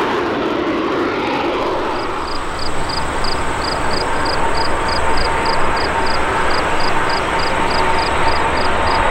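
Jet engines of an Airbus CC-150 Polaris (A310): a fading take-off roar gives way to the steady rumble and whine of the aircraft on final approach, growing slightly louder. A faint high chirping repeats about three times a second from about two seconds in.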